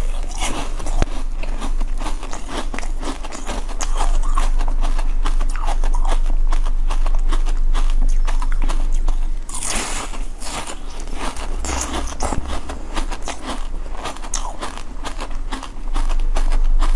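Close-miked biting and chewing of a block of coloured ice, with dense crackling and crunching throughout. Louder bites come right at the start and again about ten seconds in.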